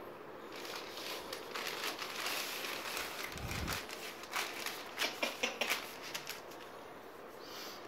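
Hands rubbing and patting an oiled baby lying on a cloth over newspaper, with crackly rustling throughout. A low thump comes about three and a half seconds in, and a quick run of sharper taps about five seconds in.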